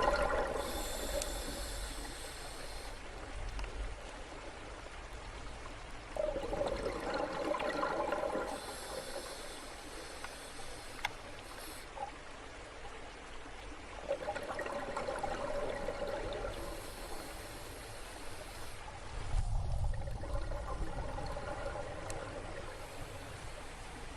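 Underwater water ambience: a wash of sound that swells and ebbs in a slow cycle about every seven seconds, alternating a mid-range surge with a higher hiss, and a low rumble about twenty seconds in.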